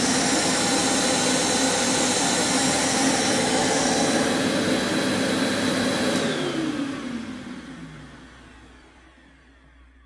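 1995 Simplicity 5000B upright vacuum cleaner running while being pushed over carpet. It is switched off about six seconds in, and its motor winds down with a falling whine, fading out over the next few seconds.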